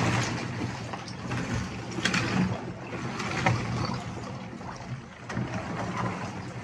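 Icy water sloshing and ice chunks knocking together as a hand sweeps through a chest-freezer ice bath, with a few sharper knocks along the way.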